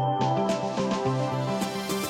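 Background music: an electronic track with sustained synth notes and a steady beat.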